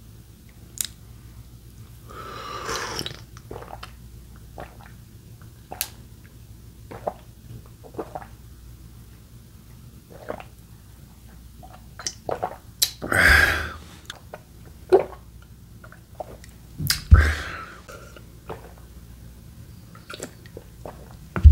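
Close-miked mouth sounds of eating and drinking: chewing, and swallowing gulps of milk from a glass mug, heard as many short wet clicks. A few heavy breaths out rise over them, the loudest about two-thirds of the way through.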